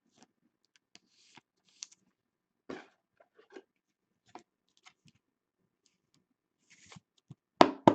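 Trading cards and their packaging being handled: scattered light rustles and small clicks, with two sharp snaps close together near the end.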